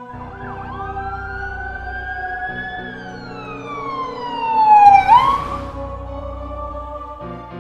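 Emergency vehicle siren making one slow wail: it rises for about two and a half seconds, then falls, and is loudest about five seconds in before it hooks back up and fades. Background music plays underneath.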